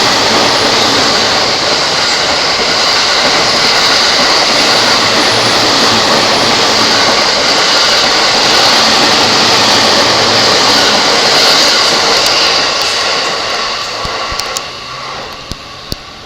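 Electric commuter train running alongside the station platform: a loud, steady rush of wheels and motors that fades away about fourteen seconds in, with a few sharp clicks near the end.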